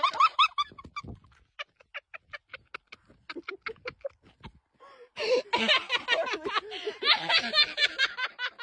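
A dog giving a fast run of short, high, excited yips that thin out toward the middle. About five seconds in comes a louder, denser stretch of yelps and whines.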